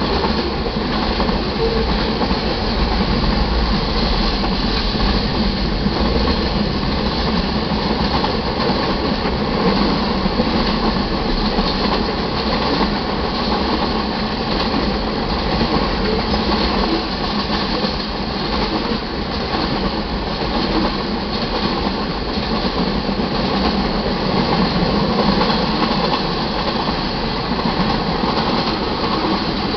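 Freight cars of a mixed manifest train rolling steadily past: the continuous rumble and clatter of steel wheels on the rails as boxcars, covered hoppers and tank cars go by.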